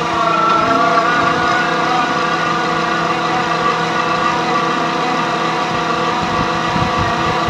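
Electric horizontal rock drill running steadily as its spiral auger bores into a rock and earth face: a motor whine that wavers slightly in pitch over a dense mechanical rumble.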